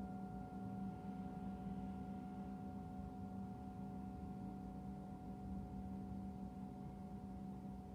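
Tibetan singing bowl ringing on, a low hum with a few higher tones held steady and no new strike.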